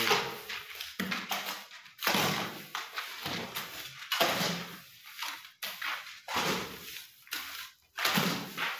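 Hoe scraping and turning wet sand-cement mortar on a concrete floor, in rough strokes about once a second.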